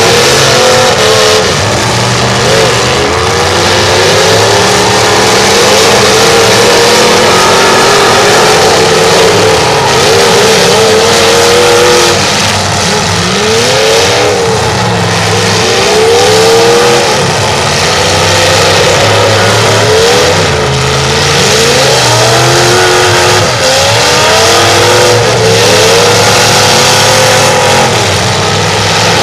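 Several demolition derby car engines revving hard at once, their pitch rising and falling over and over as the drivers gun and back off the throttle.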